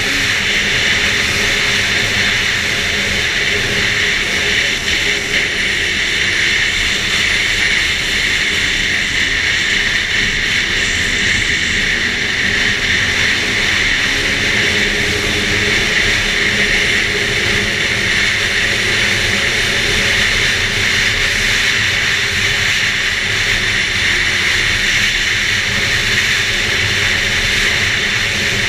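Arctic Cat F8 snowmobile's two-stroke twin engine running steadily at speed, with the track and drive noise of the sled under way.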